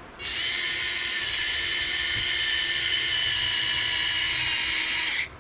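Cordless electric screwdriver running steadily for about five seconds, driving a tiny 2mm screw, then stopping abruptly.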